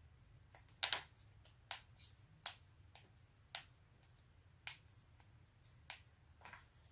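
Joints being cracked: a series of sharp pops at irregular spacing, the loudest a quick double pop about a second in, then single pops roughly every second, over a faint low steady hum.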